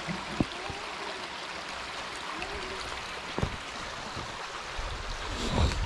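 River water rushing steadily, with a couple of sharp knocks and a low bump near the end.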